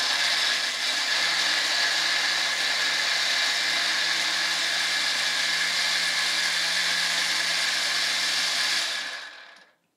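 Countertop blender running at a steady speed, grinding soaked split soybeans and water into fine soy milk, its motor humming under the whirr of the blade. It is switched off about nine seconds in and spins down to a stop.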